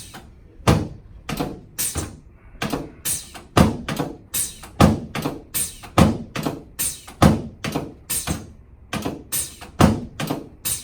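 A steady series of sharp percussive knocks, about two a second, each with a short ringing tail.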